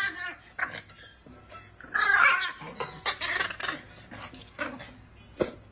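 A dog's sounds mixed with clattering and knocking, with a louder burst about two seconds in.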